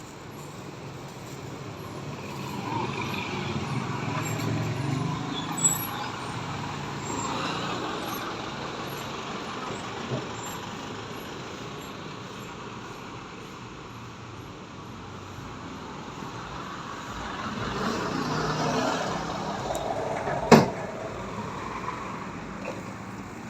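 Road traffic: motor vehicles passing, the rumble swelling twice and fading between. A single sharp knock sounds a little before the end.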